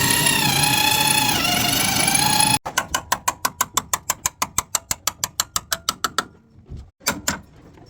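A loud whine with a high steady whistle cuts off abruptly. Then a ratchet wrench clicks rapidly and evenly, about eight clicks a second, for three to four seconds. A couple of single clicks follow near the end.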